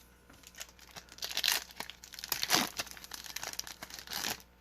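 A Yu-Gi-Oh! Maximum Gold booster pack wrapper being torn open and crinkled, in uneven bursts of rustling and tearing, loudest about a second and a half and two and a half seconds in.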